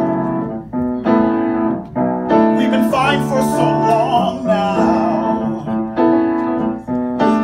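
Piano accompaniment of a musical-theatre song, playing repeated chords about once a second, with a man singing a few held, wavering notes in the middle.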